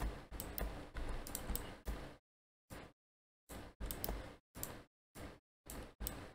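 Computer keyboard and mouse clicks and key taps, coming in short spells broken by dead silence.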